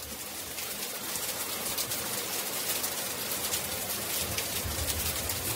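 Steady rain falling on a street and pavement, a dense hiss of drops that fades up over the first second. A low rumble swells near the end.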